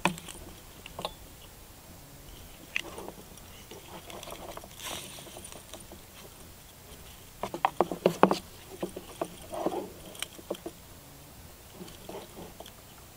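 Leather straps being threaded through and pulled against metal buckles: scattered clicks of the buckles and rustling of the leather, with a quick run of sharp clicks a little past the middle.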